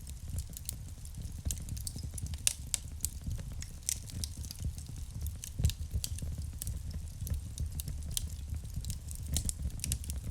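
Wood fire burning in a fireplace: irregular sharp crackles and pops over a low steady rumble of the flames.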